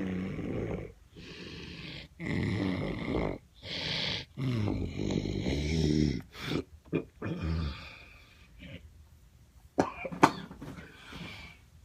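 A man snoring after drinking alcohol, a snore on nearly every breath, several of them low and droning. The snores grow quieter after about eight seconds, and two sharp clicks sound close together near ten seconds in.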